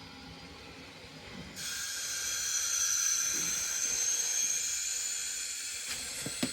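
Hydronic boiler system hissing as it is refilled and repressurized through the automatic feeder. The hiss, with a thin high whistle in it, starts suddenly about a second and a half in and holds steady, with a few light clicks near the end.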